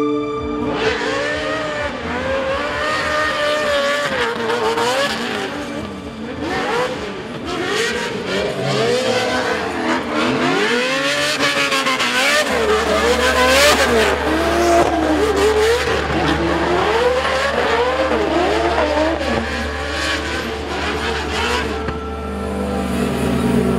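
Drift car engine revving up and down over and over in quick swings while the car slides, with tyre squeal.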